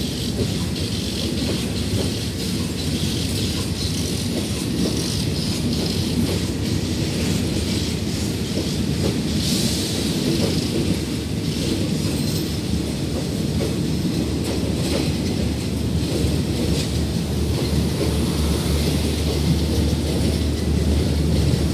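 Passenger coaches of a departing Thai rapid train rolling steadily past on the platform road: a continuous rumble of steel wheels on the rails with repeated clicks over the rail joints.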